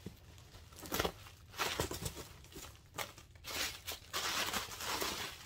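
Bubble wrap and tissue paper crinkling and rustling in irregular bursts as a doll is unpacked from its box, with a longer stretch of rustling about three and a half seconds in.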